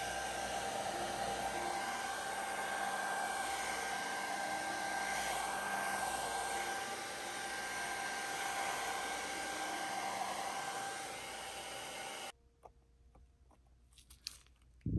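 Handheld electric hot-air blower running steadily over wet acrylic paint to dry it, a constant whine over its rush of air, cut off suddenly about twelve seconds in. A few faint clicks follow near the end.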